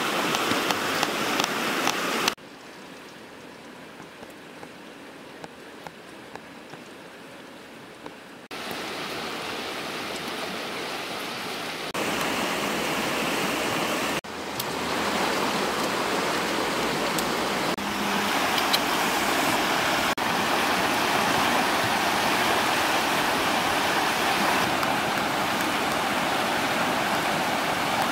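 Rushing of a fast-flowing river, a steady noisy hiss. It drops to a much quieter stretch with a few faint pops from about two to eight seconds in, then comes back louder in steps.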